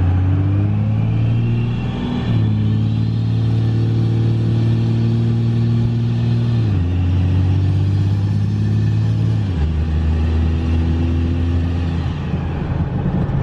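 24-valve 5.9 L Cummins inline-six diesel with an S467 single turbo, heard from inside the cab, accelerating at about half throttle. A turbo whistle rises over the first several seconds. The engine note drops twice, about seven and nine and a half seconds in, as the automatic transmission upshifts. The owner finds this big turbo slower to spool than he hoped.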